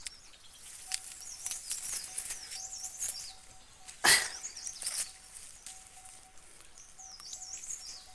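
Small birds chirping and warbling repeatedly in the surrounding trees. About four seconds in, one brief loud burst of leaf and branch noise as a mulberry branch is pulled down overhead.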